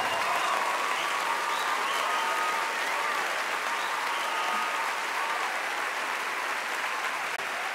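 Theatre audience applauding steadily, with a few scattered cheers over the clapping; the applause slowly dies down.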